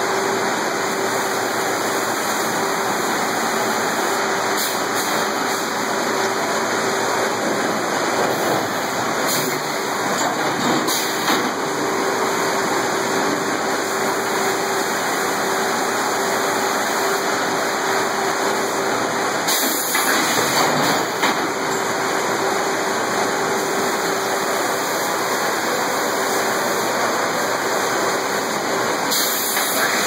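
Steady din of a sawmill head rig's machinery running, with a constant hum under it and a few brief clatters of the carriage and log handling.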